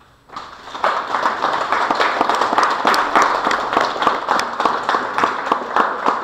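Audience applauding: a dense mass of hand claps that starts suddenly a moment in and holds steady.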